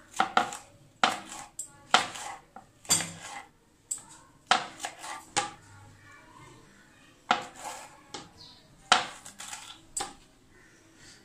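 Kitchen knife cutting a green bell pepper on a wooden chopping board: a series of crisp, irregular chops, roughly one a second.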